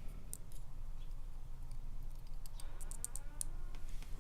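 Faint, scattered small clicks and ticks of a tool working a pin spring out of a disassembled lock cylinder, in a few quick clusters, over a low steady hum.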